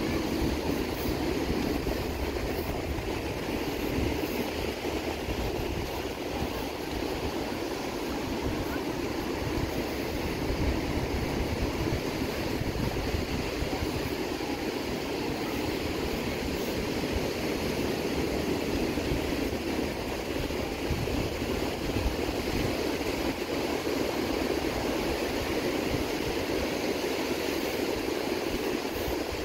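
Ocean surf breaking along a sandy beach: a steady, even roar with no pauses.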